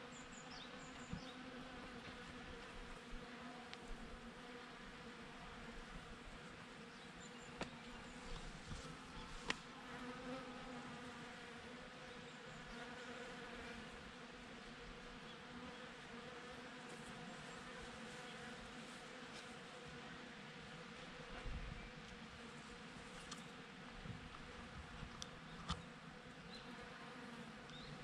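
Honeybees buzzing steadily as they forage on cherry blossoms, a faint low hum, with a few light clicks here and there.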